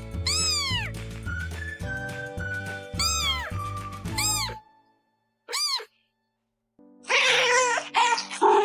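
A cat meowing in short rising-and-falling calls, several in a row, over background music; the music stops about four and a half seconds in, one more meow follows, then a louder, rougher noise near the end.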